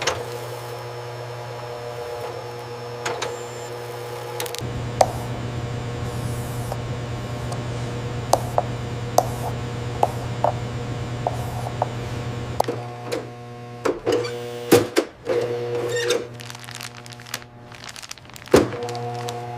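Machinery running with a steady hum, broken by scattered sharp clicks and knocks that come more often near the end.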